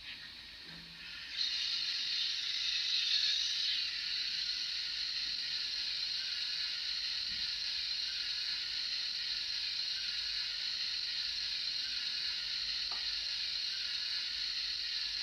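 Recorded steam-locomotive hiss played by the DCC sound decoder of a Fleischmann BR 044 N-gauge model standing still. It starts about a second and a half in, is loudest for a couple of seconds, then settles to a steady hiss.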